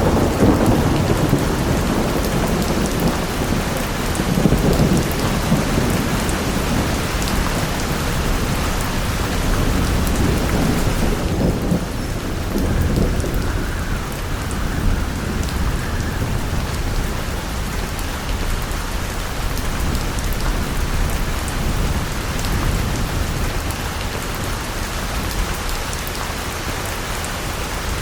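Designed cinematic thunderstorm sound effect: heavy rain with deep rolling thunder rumbling through the first ten seconds or so, then easing to a steadier downpour with fainter rumbles.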